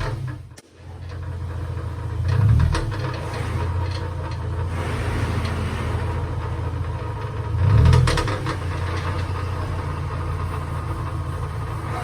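Car engine idling with a steady low hum, revved briefly twice, about two and a half seconds and eight seconds in.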